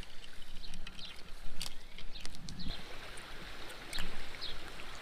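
Small creek's running water, with a few small sharp clicks and rustles from handling over dry grass.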